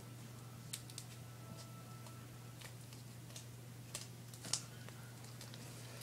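Quiet room tone with a steady low hum, broken by a few faint, scattered small clicks, about a second in and again around four seconds in.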